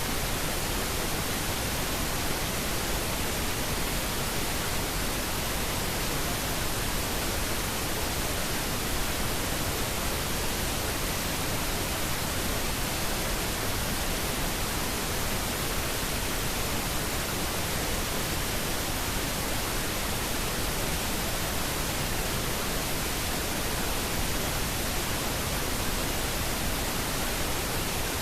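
Steady, unbroken hiss of white noise (static), used as a mask over subliminal spoken affirmations that are not audibly heard.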